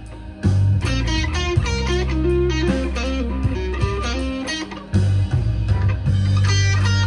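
Fender electric guitar playing a slow blues lead of single notes with string bends, over steady sustained low bass notes.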